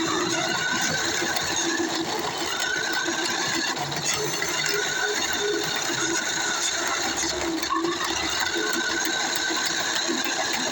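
RC car's small electric motor and gears whirring steadily, the whine shifting a little in pitch now and then.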